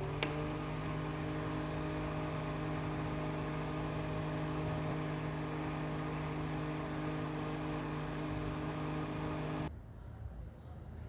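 Mini humidifier fan running at a steady speed: a small motor's hum with a rush of air. It starts with a click and cuts off suddenly near the end, as if switched off.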